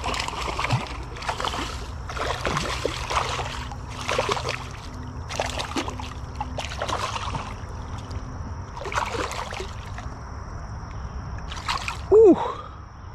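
Hooked largemouth bass thrashing and splashing at the water's surface beside a kayak as it is brought in, in a string of irregular splashes about a second apart. Near the end comes a short, loud sound with a falling pitch, the loudest moment, as the fish is gripped by the lip.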